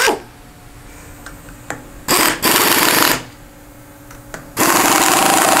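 Handheld pneumatic driver on an air hose running in two bursts, a short one about two seconds in and a longer one near the end, with a rapid rattling buzz as it tightens the nuts on a gooseneck workholding clamp.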